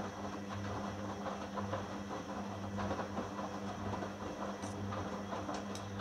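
Hoover Dynamic front-loading washing machine tumbling a load during its second rinse: the drum motor hums steadily while water sloshes and wet clothes splash and patter against the drum and door.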